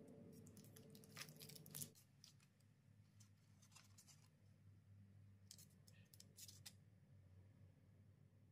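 Near silence with a few faint, short clicks and scrapes of hands and utensils at work, bunched about two seconds in and again a few seconds later. A faint low hum drops away about two seconds in.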